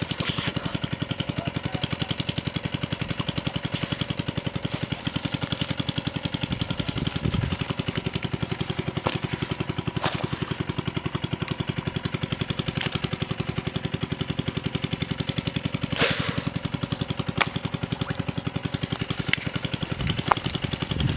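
A small engine running steadily with a fast, even thumping, about nine beats a second. A few sharp clicks and one short rushing burst about sixteen seconds in.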